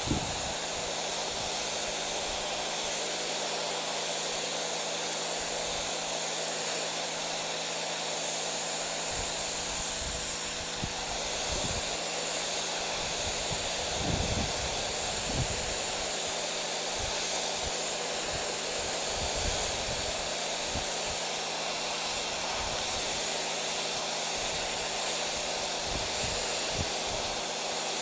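Pressure washer spraying: a steady, loud hiss of high-pressure water, over a low steady hum, with a few low thumps around the middle.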